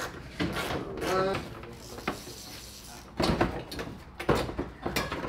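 A voice speaks briefly and indistinctly, then from about three seconds in there is a run of knocks and clattering.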